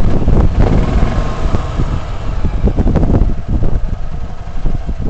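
Tracker OX400 side-by-side's engine running, heard from the driver's seat as a loud, uneven low rumble.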